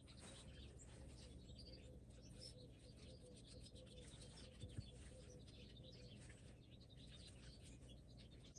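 Near silence: faint room tone with faint bird chirps in the background and one soft click about halfway through.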